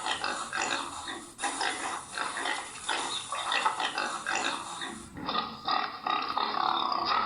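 Recorded farm-animal sounds, a pig grunting and oinking. About five seconds in the sound changes to a different, duller-sounding recording.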